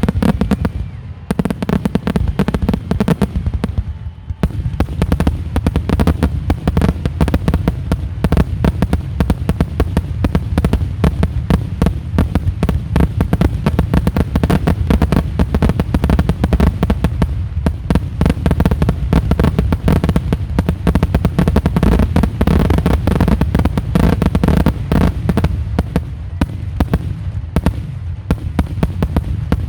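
Aerial fireworks shells bursting in a dense, rapid barrage of overlapping booms and cracks, many per second, with short lulls about one and four seconds in.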